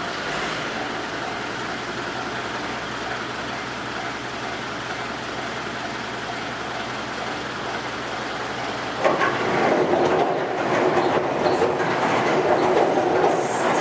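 Electric train running past a level crossing: a steady running noise that jumps suddenly louder about nine seconds in as the train comes close, then stays loud.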